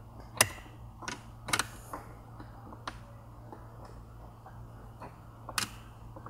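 A few sharp plastic clicks and taps as a small screwdriver and fingers work at a stubborn retaining clip on a Mk7 GTI's dash air vent. A steady low hum runs underneath.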